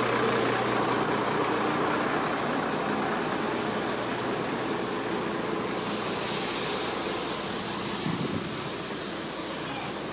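Motor vehicle running, a steady rumble of engine and road noise, with a loud hiss that comes in suddenly about six seconds in and fades near the end.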